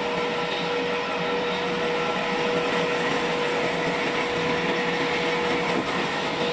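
Trolley sawmill's saw running steadily through dry wood: an even rushing noise with a steady hum that fades near the end.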